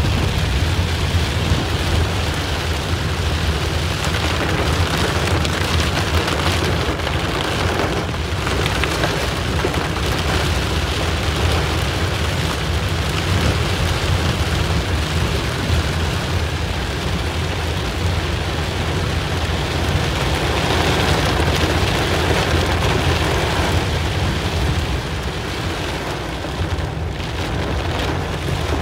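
Heavy rain pelting a car's roof and windshield, heard from inside the moving car, with a steady low rumble underneath.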